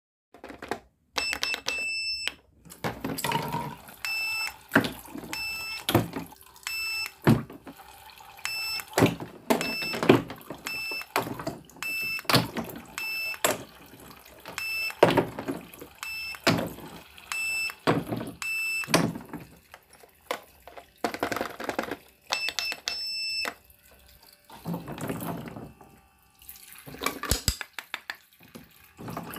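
Pink toy cash register beeping: a long series of short electronic beeps as its keys are pressed and its handheld scanner is used, among plastic clicks and knocks of toy food being handled.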